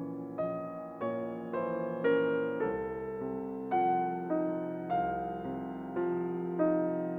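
Background piano music: slow, even notes struck about every half-second to second and left ringing.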